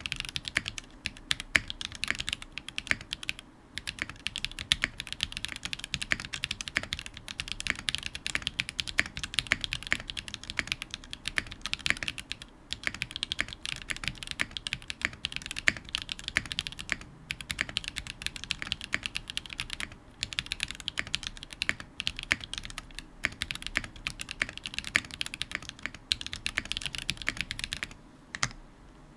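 Fast, continuous typing on a custom mechanical keyboard, a Smith+Rune Iron165 with lubed Zaku switches, a forged carbon plate and GMK Apollo keycaps, with short pauses now and then.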